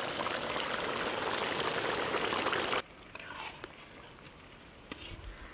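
Seer fish curry bubbling at a rolling boil in a large kadai, a steady hissing bubble that cuts off abruptly about three seconds in, leaving a quiet background with a few faint clicks.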